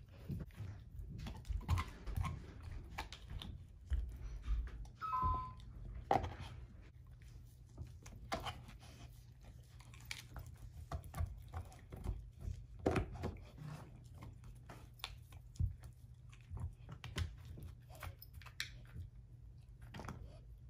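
German shorthaired pointer chewing and gnawing an air-dried, hair-on whole pig foot, giving irregular crunches and cracks.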